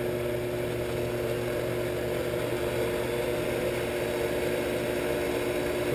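Shopsmith 10ER headstock belt-driven by a Leeson 3/4 HP DC motor, running steadily at about 2000 rpm on freshly trued pulleys: an even whir with one constant tone.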